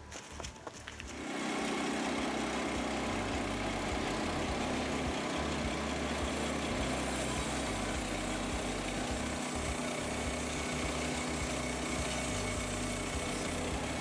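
Woodland Mills HM122 portable band sawmill running, its gas engine getting louder about a second in and then holding steady as the band blade cuts across an upright pine log.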